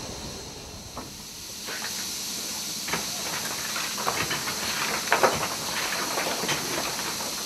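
Steady steam hiss from a BR 9F 2-10-0 steam locomotive, louder from about two seconds in, with scattered sharp metallic clanks from the cab.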